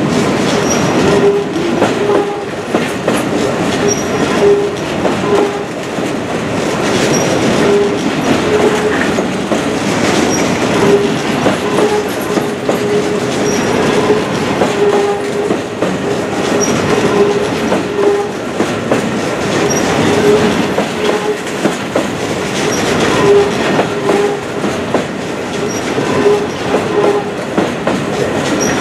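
Long freight train of EWS bogie hopper wagons rolling past at speed: a continuous rumble with the clickety-clack of the wheelsets over rail joints, and a low humming tone that comes and goes.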